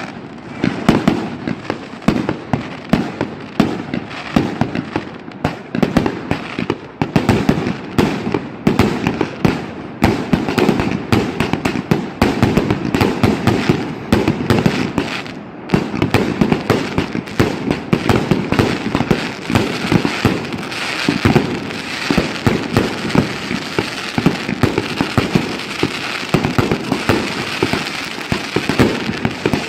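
A 49-shot fireworks cake (repeater box) firing: a rapid, unbroken string of sharp bangs and crackles.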